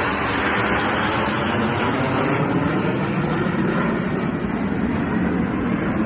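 Jet aircraft making a low flyby: a loud, steady rush of engine noise whose highest part thins a little in the second half.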